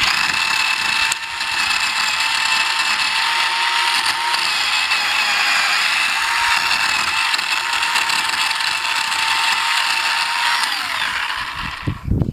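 Chainsaw running at full throttle, cutting into a tree trunk at a steady pitch. About eleven seconds in, the throttle is let off and the pitch drops as the engine winds down.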